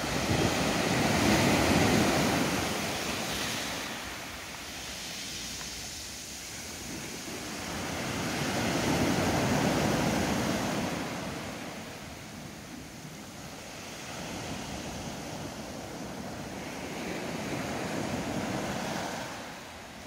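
Small sea waves breaking on a sandy beach and washing up the shore. There are three surges about eight seconds apart, each rising and then fading over several seconds; the first is the loudest.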